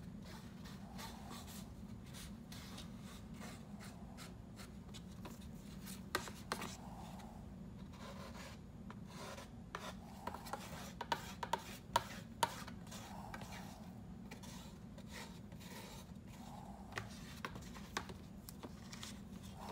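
Small spatula stirring and scraping thick two-part epoxy paste on a paper plate. A run of sharp clicks and taps comes near the middle as the spatula is scraped against another tool, over a steady low hum.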